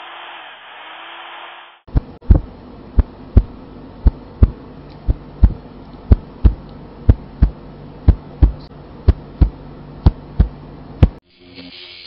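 A heartbeat sound effect: deep double thumps, lub-dub, about once a second, starting about two seconds in and stopping shortly before the end. Before it, about two seconds of a steady hiss.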